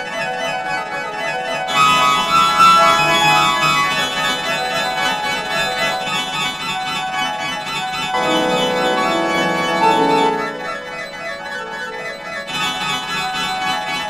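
A sad wheezing sound clip run through 4ormulator pitch-shifting audio effects, turned into a dense, organ-like chord of many layered pitches. It swells about two seconds in and again later, with a few sliding pitches, then thins out.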